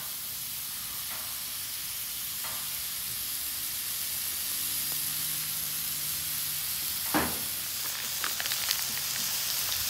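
Raw beef burger patties sizzling steadily on a hot flat-top griddle, with one short knock about seven seconds in and a plastic bag crinkling near the end.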